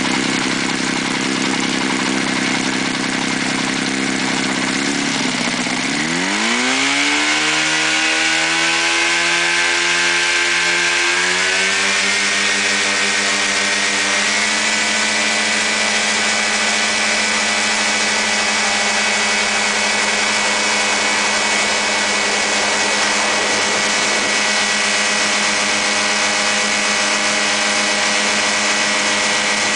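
Quicksilver MX ultralight's two-stroke engine and pusher propeller running at low power, then throttled up about six seconds in, the engine speed climbing over several seconds and then holding steady at high power.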